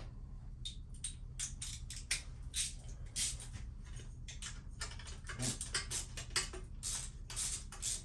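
Irregular light clicks and ticks from hand-tool work on a motorcycle, a few a second and denser in the second half, over a steady low hum.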